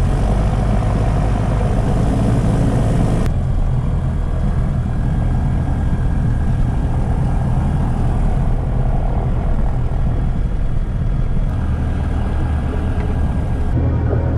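Diamond DA20 light aircraft's piston engine and propeller running steadily at low power while taxiing, heard from inside the cockpit as a loud, low drone. The sound shifts abruptly a couple of times.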